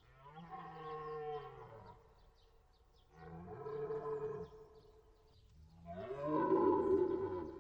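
Red deer stag roaring in the rut: three long, deep calls, the third the loudest.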